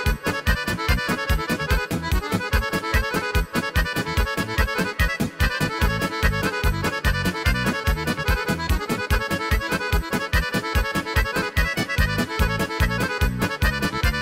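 Background music led by accordion, with a fast, steady beat.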